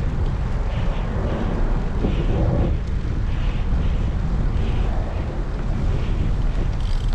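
Wind rushing over the microphone of a camera on a moving bicycle: a steady low rumble.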